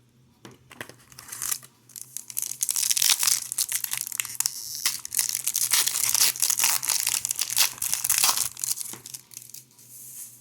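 A hockey card pack's wrapper being torn open and crinkled by hand: a long run of sharp crackling and rustling that eases off near the end.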